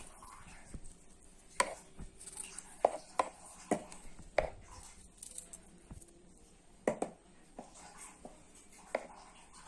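A knife cutting the green tops off fresh strawberries, with sharp knocks at irregular intervals, about eight in all.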